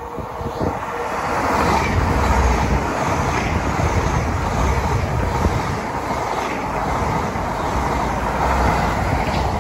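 Hitachi Intercity Express bi-mode train, running on its underfloor diesel engines, passes through the station at speed. Its noise builds over the first two seconds into a loud, steady rush of wheels on rail over a deep engine rumble.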